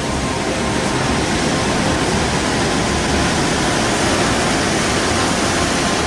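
Heavy surf breaking and churning against rocks below a sea cliff: a loud, steady rushing noise of white water with no let-up.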